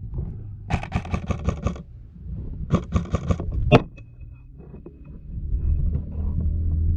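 AR-15-style airsoft rifle firing rapid full-auto bursts: two bursts of about a second each early on, a single sharp crack just after the second, and another burst near the end, over a low rumble.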